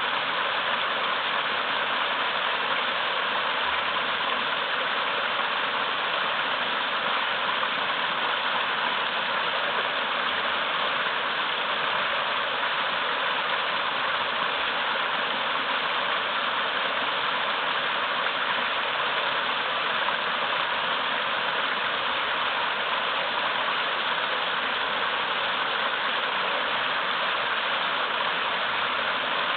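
Small waterfall in a mountain river rushing steadily over large rocks, a constant even splashing rush of water.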